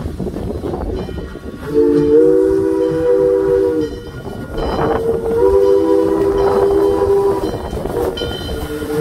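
Steam locomotive No. 2023 sounding its chime whistle, a chord of several steady notes, in long blasts: the first about two seconds in, the next around five seconds in, and another starting near the end. The locomotive's low running rumble sits underneath as it approaches.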